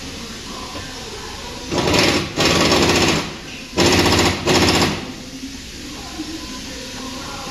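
Impact wrench hammering in four short bursts, in two close pairs, about two to five seconds in: fasteners being run down and tightened on the front wheel hub assembly during reassembly.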